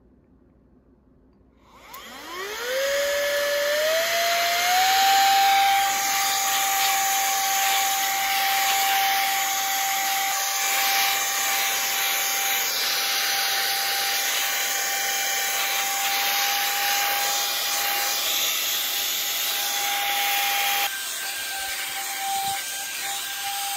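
Cordless electric air duster's fan motor starting about two seconds in with a whine that climbs in pitch in a few steps, then running steadily with a high whine over rushing air.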